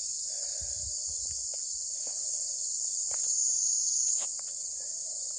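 Outdoor insect chorus, crickets' steady high-pitched chirring that swells a little about three and a half seconds in, with a few faint clicks.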